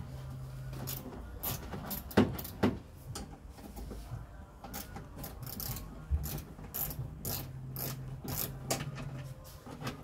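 Socket ratchet clicking in short runs as 10mm bolts are undone, with two louder knocks about two seconds in.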